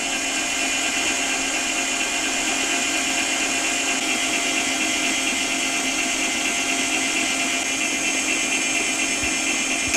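Electric stand mixer running at a steady speed, its whisk beating egg whites into a stiff foam.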